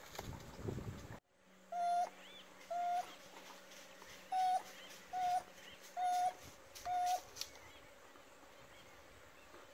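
An African wild dog giving six short, clear 'hoo' calls, each on one steady pitch and spaced roughly a second apart. This is its contact call, summoning the rest of the pack to the kill.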